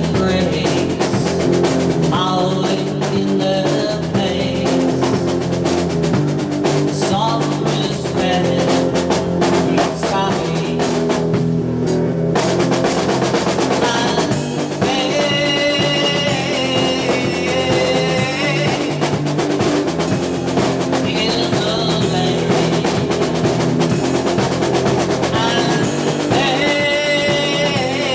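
Live rock band playing loudly: electric guitars and a drum kit, with a sung vocal.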